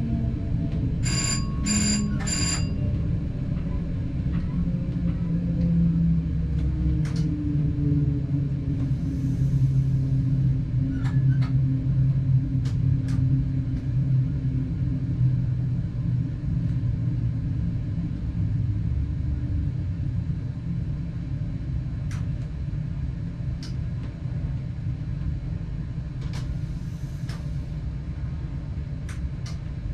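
Passenger train heard from the driver's cab, its drive running with a steady rumble and a tone that rises slowly as the train gathers speed. Three short electronic beeps sound about a second in, and sharp clicks come now and then.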